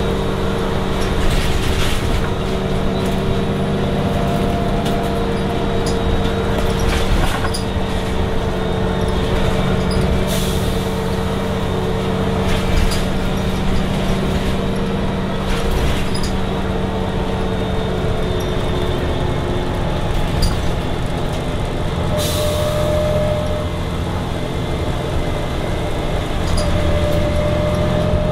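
Volvo Olympian double-decker bus, with its Voith automatic gearbox, heard from inside the cabin while under way: a steady engine and drivetrain drone whose pitch slowly falls, then a whine that rises in pitch near the end. Short hisses of air from the brakes and body rattles come through several times.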